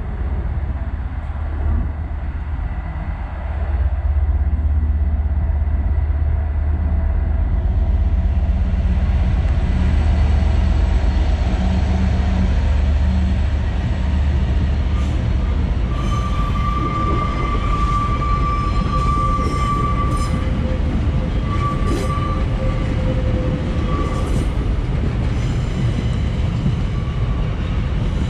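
Freightliner Class 66 diesel locomotive, with its two-stroke V12 engine, passing close by with a train of container flat wagons. A deep engine rumble fills the first half; then the wagons' wheels run past on the rails with a high squeal that comes and goes, starting about halfway through.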